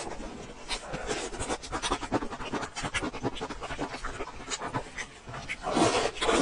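Close-miked mukbang eating: wet chewing and lip-smacking on braised pig's trotter, with a run of short sticky clicks and a louder bite near the end.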